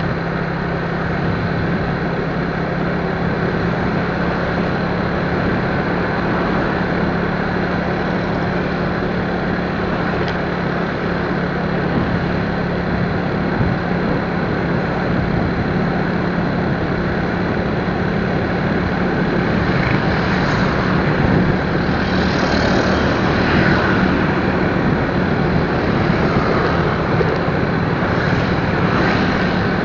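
Steady engine hum with dense road and wind noise from a moving vehicle. Brighter hissing swells come in now and then over the last third.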